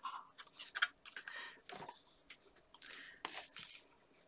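Paper and card stock being handled and moved about: short rustles and light taps, the loudest a little after three seconds in.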